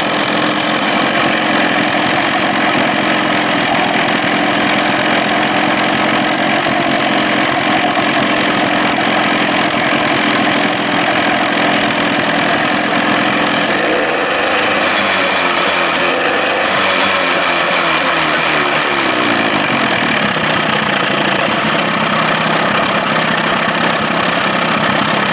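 Johnson 25 hp two-stroke outboard motor running steadily in a test barrel. Its speed shifts for a few seconds about fourteen seconds in, then settles again.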